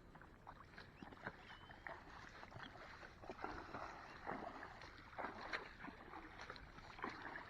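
Faint water lapping and splashing, with irregular small clicks and knocks scattered through it.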